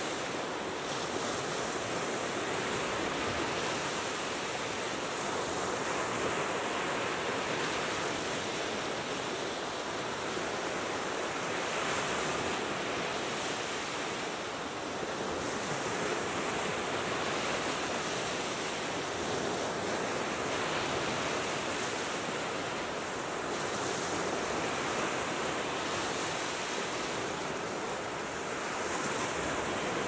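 Sea surf breaking and washing up a sandy shore: a steady rush of waves that swells and eases every few seconds.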